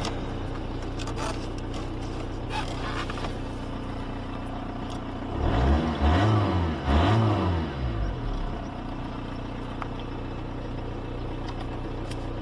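VW Polo 1.9 SDI's naturally aspirated four-cylinder diesel idling steadily. About halfway through it is revved twice in quick succession, each time rising and falling back to idle.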